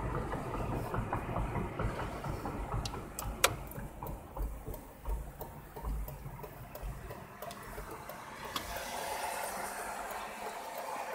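Road noise and engine rumble heard from inside a moving car, with uneven low thumps and a sharp click a little over three seconds in. The rumble fades after about seven seconds as the car slows almost to a stop, leaving a quieter steady hum.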